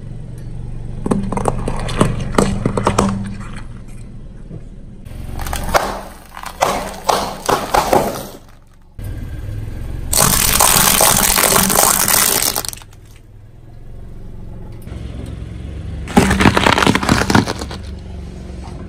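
A car tyre slowly rolls over and crushes a series of objects on concrete: soft jelly cups, then shiny ornament balls, then cucumbers. The sound is a run of separate bouts of cracking and breaking over a low engine hum, the loudest a dense crackling burst of two to three seconds about halfway through.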